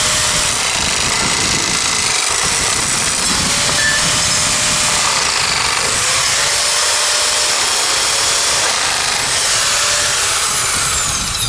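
Makita electric sheet-metal nibbler running steadily as its punch cuts through an eighth-inch aluminum strip, with the motor's tone wavering slightly in pitch.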